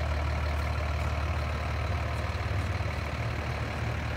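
Mercedes-Benz turbo diesel engine of a 2007 Freightliner M2 106 Sport Chassis idling, a steady low-pitched rumble.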